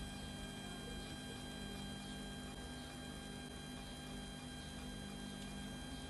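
Steady low electrical hum with faint hiss.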